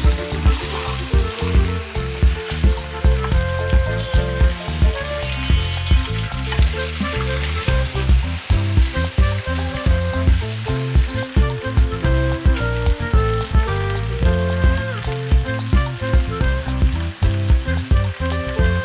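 Whole sea fish sizzling as it shallow-fries in oil in a nonstick frying pan, with a wooden spatula stirring against it in the pan. Instrumental background music with a steady beat plays under the sizzle.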